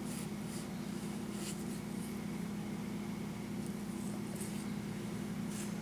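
Steady low mechanical hum, with a few faint soft swishes of a paintbrush working paint onto the wooden birdhouse.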